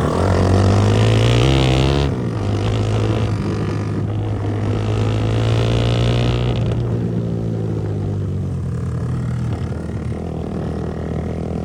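Motorcycle engine under load on a rough off-road climb. The revs rise, drop suddenly about two seconds in, then rise again and hold steady.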